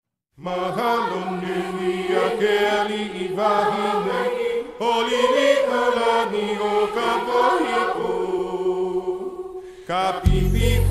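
Hawaiian-language chant sung by a chorus of voices over a held low note. Near the end the full backing music comes in with a heavy bass.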